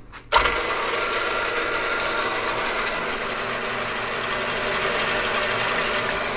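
Vertical milling machine switched on about a third of a second in, its spindle then running steadily with several steady tones over the hum of the drive.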